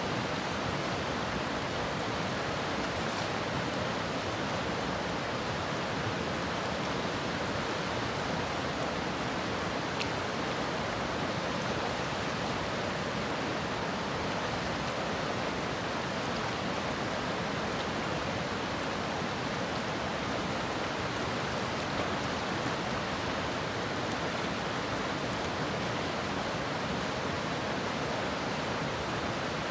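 River water rushing steadily past a cobble bank, an even, unbroken hiss.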